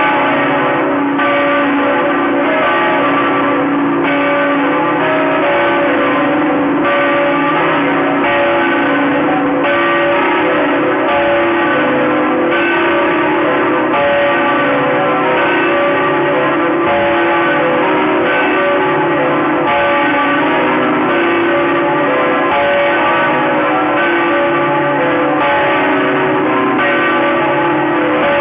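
Bells of Saigon's Notre-Dame Cathedral pealing: several bells struck in continuous succession, a fresh stroke about every one and a half seconds, their tones overlapping and ringing on.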